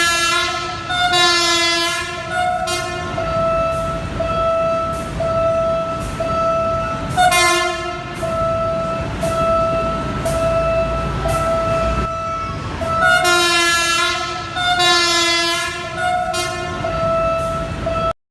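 Philippine National Railways train sounding its horn in a long run of short, tune-like toots, with louder, fuller stretches every few seconds, over the low rumble of the train. The sound cuts off abruptly near the end.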